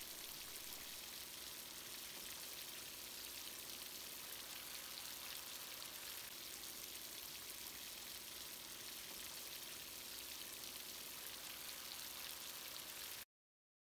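Water spraying from a shower head and pattering down in a steady stream; it cuts off suddenly near the end.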